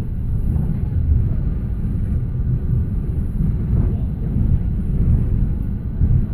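Manchester Metrolink tram running through the streets: a steady low rumble.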